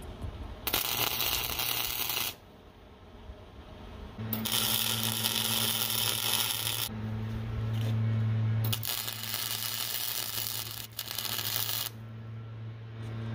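Wire-feed welder welding new steel into a rusted trailer frame: about five runs of arc noise, each one to three seconds long, with short pauses between, and a low steady hum from the welder under the middle runs.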